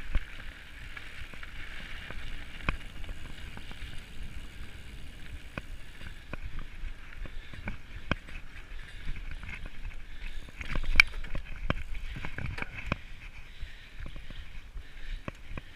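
Mountain bike ridden over a dirt trail: steady tyre and riding noise, with sharp rattles and knocks from the bike over bumps that come thickest about two-thirds of the way through.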